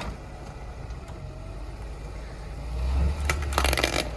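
Car engine running at low revs, its drone swelling about three seconds in as the car rolls forward, followed by a short gritty crunch under the tyre as it drives over a small plastic fire-alarm heat detector.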